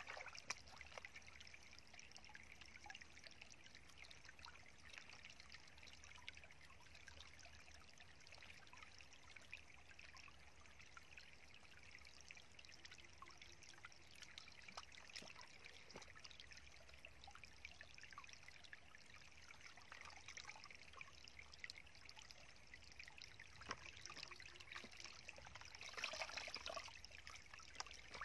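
Faint trickling and sloshing of water as hands wash a whole raw chicken in a plastic bowl of water, with small wet clicks. Near the end it grows louder, splashing and dripping as the chicken is lifted out of the bowl.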